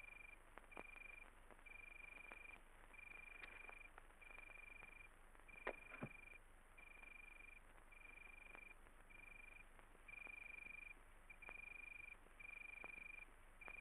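Faint night-time cricket chirping: a high, even trill broken into short pulses of about half a second each, with a few soft clicks. The two loudest clicks come close together about six seconds in.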